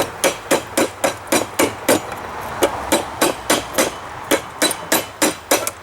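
Hand hammer striking a heated railroad spike on an anvil in a quick, even rhythm of about four blows a second, with a short break about two seconds in. The smith is drawing out and stretching the steel to form the tusks.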